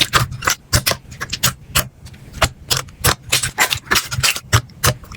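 Slime being squeezed and pressed by hand, giving a quick, irregular run of crisp crackles and pops, several a second.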